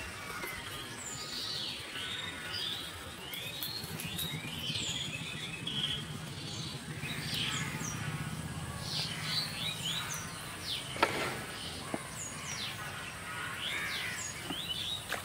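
Many birds chirping and calling over a low background hum, which is strongest through the middle. One sharp click comes about three-quarters of the way through.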